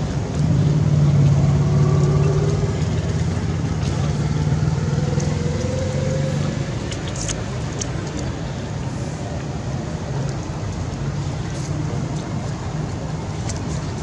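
A motor vehicle's engine running steadily with a low hum. It swells about half a second in, is loudest for the next couple of seconds, then slowly eases off.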